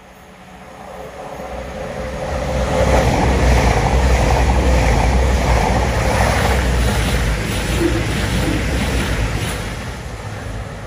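Two coupled East Midlands Railway Class 222 Meridian diesel units passing through a station at speed, with diesel engines running and wheels rumbling on the rails. The sound grows as the train approaches, is loudest a few seconds in as it goes by, then fades as it runs away.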